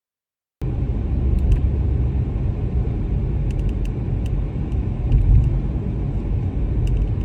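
Car driving: steady low rumble of tyre and engine noise that cuts in suddenly about half a second in, with a few faint ticks.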